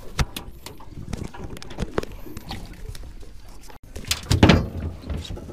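Irregular light clicks and knocks of handling on a boat deck, then a louder low rumble with a few thumps about four seconds in.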